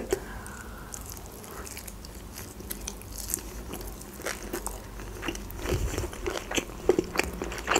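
A person chewing a mouthful of sesame-crusted sushi roll: wet mouth sounds, then many small crunches and clicks from about two and a half seconds in.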